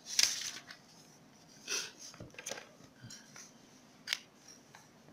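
Paper textbook page being turned and smoothed down by hand: a few short dry paper rustles, with a sharper click near the end.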